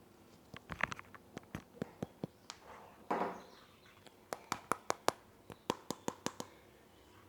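Close-up tapping and clicking on a headset microphone: an irregular series of sharp taps, coming faster in the second half, with a short scratchy rustle about three seconds in.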